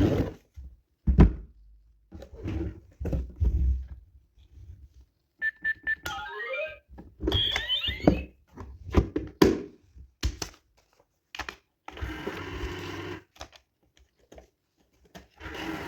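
Plastic clicks and thunks from handling a toy electronic money safe, with a short electronic tone melody about six seconds in. Near the end its small motor whirs twice.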